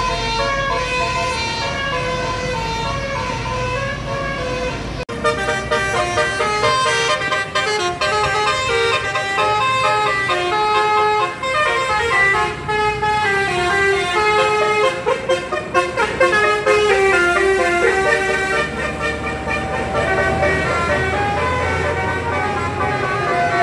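Bus 'telolet' horn: a set of tuned air horns playing short melodic tunes, note after note in quick steps, over a low rumble. The tune breaks off and changes abruptly about five seconds in.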